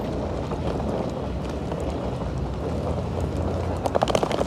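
Low, steady rumble of wind buffeting a phone microphone, with outdoor traffic noise underneath. A brief rattling clatter rises near the end.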